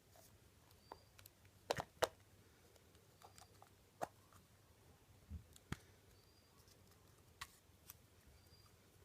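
Faint, scattered clicks and crinkles of a small toy package being opened by hand, a dozen or so sharp ticks spread irregularly through the stretch.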